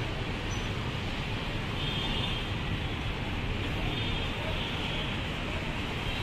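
Ashok Leyland bus engine running as the bus pulls slowly forward and turns, with steady traffic noise around it.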